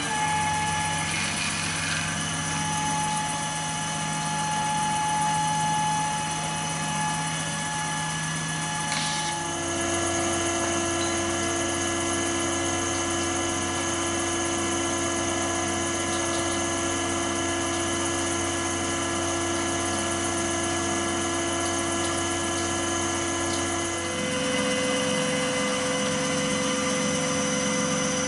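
CNC milling machine spindle running steadily as it cuts a hardened-steel pistol slide, a steady whine that steps to a new set of pitches twice, about a third of the way through and again near the end.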